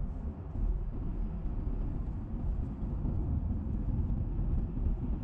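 A car driving: a steady low rumble of road and engine noise.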